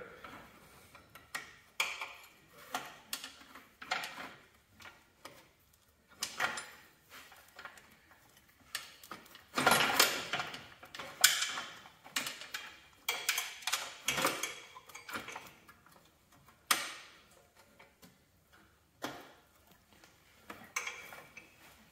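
Irregular metal clicks and knocks as a hydraulic control valve and its hose fittings are handled and fitted into a garden tractor's dash. A denser burst of clatter comes about ten seconds in.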